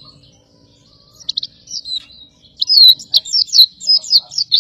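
Pleci dakun white-eye singing: soft high notes at first, a few sharp chirps about a second in, then from about halfway a loud, fast run of high chirping notes, about three or four a second.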